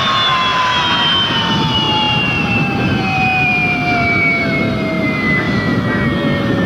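Harrier's Rolls-Royce Pegasus jet engine winding down: a whine falling steadily in pitch over a rushing engine noise.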